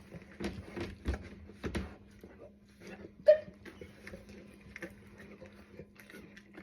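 A large dog, a Black Russian Terrier, moving about on a hard floor: scattered taps and knocks, with one sharp louder click about three seconds in, over a faint steady hum.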